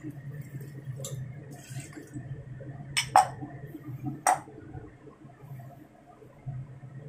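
Three sharp clinks of kitchenware, two close together about three seconds in and one a second later, over a steady low hum.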